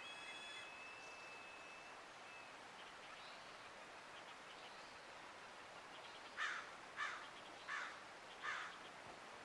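Faint steady rush of a gentle river under forest birds: a clear whistled bird note held until about two seconds in, then four harsh calls from a bird in quick succession, about 0.7 s apart, in the second half.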